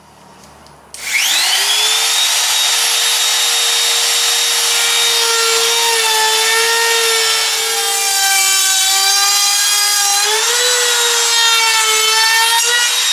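Handheld trim router with a two-flute flush trim bit, switched on about a second in and spinning up to a steady high whine. It trims Filon fiberglass sheet flush with the plywood edge: its pitch sags around the middle under the cut and rises again near the end.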